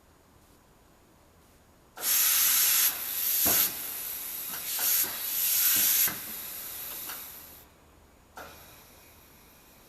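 Compressed air hissing in several loud bursts over about four seconds, then a weaker hiss that dies away, as air is let into a tire being mounted on a wheel.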